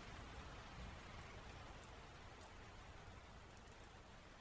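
Faint rain: an even hiss of falling rain with scattered drop ticks, fading slightly.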